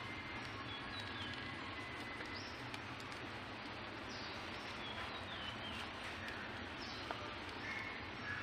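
Outdoor ambience: a steady background noise with birds calling now and then, short high chirps and falling whistles, and one sharp tick about seven seconds in.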